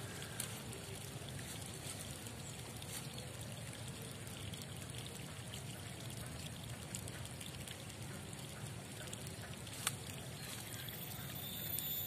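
Faint steady trickle of water, with a few light clicks, one sharper near the end; a thin high whine starts just before the end.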